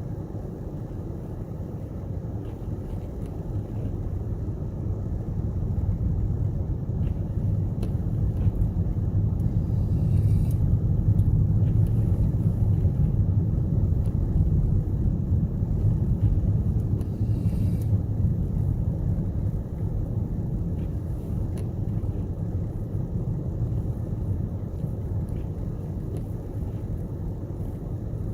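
Steady low rumble of a car driving: engine and tyre noise on the road, growing louder toward the middle and easing off near the end.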